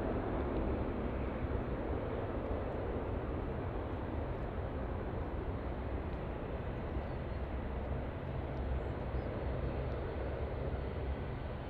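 Boeing 787-10 airliner's turbofan engines at climb power just after takeoff: a steady low rumble that slowly fades as the jet climbs away.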